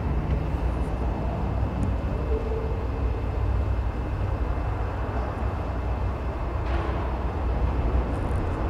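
Steady low rumble and hiss of background room noise once the keyboard music has stopped, with a brief rustle about two-thirds of the way through.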